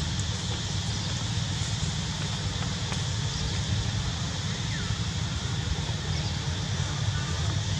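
Steady outdoor ambience: a low rumble, like wind on the microphone, under a constant high insect drone, with a few faint short chirps.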